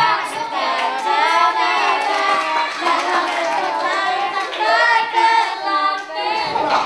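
A group of young voices singing an Indonesian ballad in harmony, with hand clapping.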